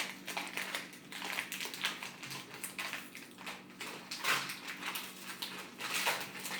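Pokémon card booster pack and its cards being handled: irregular crinkling and rustling as the pack is opened and the cards are sorted through.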